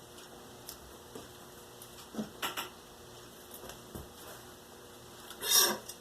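Crafting tools and cardboard being handled on a work surface: scattered light clicks and knocks, then a loud, brief scraping swish a little before the end.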